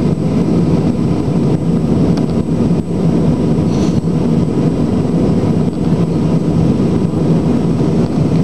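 Steady cabin noise inside an Airbus A319 airliner in flight: a low, even rush of jet engines and airflow.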